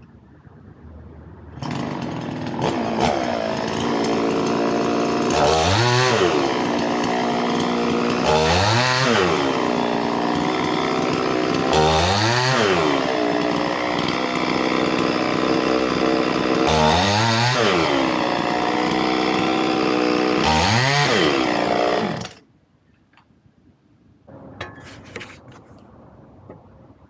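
Chainsaw coming in about a second and a half in and running steadily. It is revved up five times, the pitch climbing and falling with each burst. It stops abruptly near the end.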